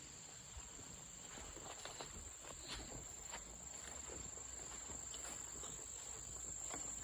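Insects trilling in one steady high continuous tone, with faint scattered scuffs and clicks that sound like footsteps.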